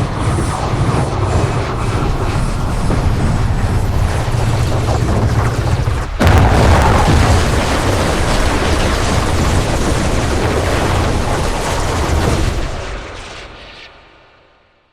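A loud, continuous explosion-like blast sound effect with no clear pitch. It jumps suddenly louder about six seconds in, then fades out over the last two seconds.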